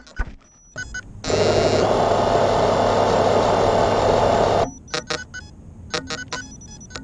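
FPV quadcopter's brushless motors driven at throttle while the quad lies crashed in the grass: a loud, steady buzzing noise with a low hum for about three and a half seconds that cuts off abruptly, followed by scattered clicks and knocks. Throttle on a downed quad with its motors obstructed is what the pilot blames for burning its ESCs.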